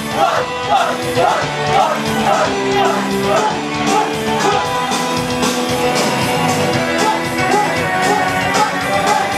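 Live pop-rock music with singing, played loud and steady.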